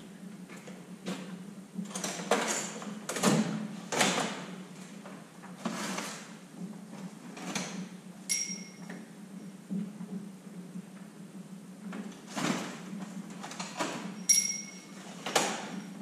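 Steel tool-chest drawers sliding open and shut, with scattered knocks and scrapes and a couple of short metallic clinks as parts are rummaged through, over a steady low hum.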